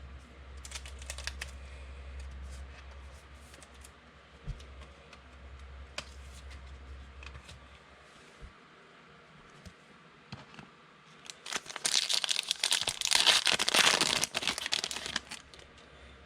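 Trading cards being handled, with light clicks and taps, then about eleven seconds in a card pack's plastic wrapper loudly crinkling and tearing for a few seconds as a new pack is opened.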